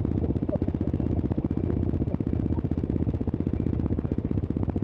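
Dirt bike engine idling steadily with an even, rapid pulse.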